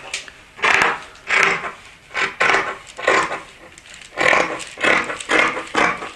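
Fabric shears cutting through fabric on a table, a snip each time the blades close, about eight in a regular rhythm a little faster than one a second.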